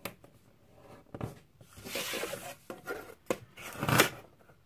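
A folded sheet of paper rubbed and pressed flat against a wooden desk to sharpen a crease. There is a scratchy rub around the middle, and several sharp taps as a plastic ruler is picked up and set on the paper.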